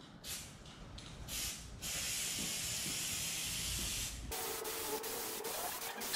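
Aerosol can of spray contact adhesive spraying onto plywood: two short bursts, then a long steady hiss. About four seconds in, the spray changes to a thinner hiss carrying a faint steady tone.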